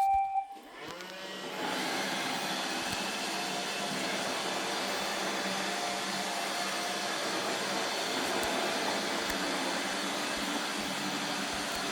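iRobot Roomba 772e robot vacuum starting a cleaning run: the last note of its start-up chime, then its vacuum and brush motors spin up over about a second and a half and run steadily with an even whirring hiss.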